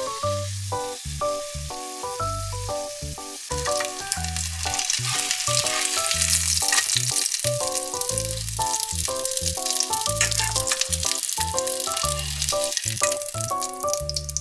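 Okonomiyaki with bacon sizzling and crackling in an oiled frying pan, the sizzle growing louder a few seconds in. Background music with a steady bass beat plays over it.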